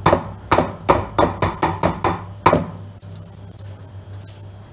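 Metal hand-mixer beaters, just pulled from the mixer, knocked against a plastic mixing bowl to shake off thick chocolate cream: about ten quick knocks over two and a half seconds, the last the loudest, then only a low steady hum.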